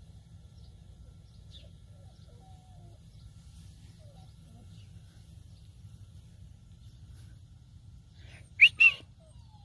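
Two short, loud, high-pitched puppy yips, about a third of a second apart near the end, over faint low background noise.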